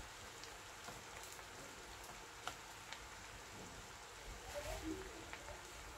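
Faint steady sizzling with scattered small pops from a pan of biryani rice layered over lamb, cooking on a gas hob.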